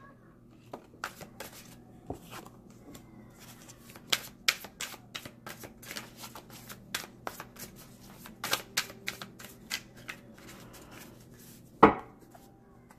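A tarot card deck being shuffled by hand, overhand rather than riffled: an irregular run of soft snaps and slides of card stock, a few a second, with one sharper snap near the end.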